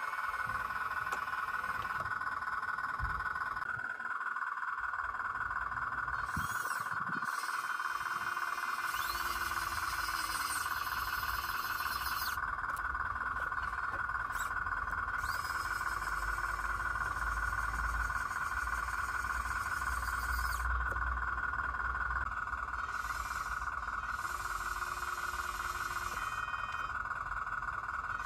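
Steady high-pitched whine of a small electric motor, with three brief lower hums of a second or two each and a low rumble through the middle.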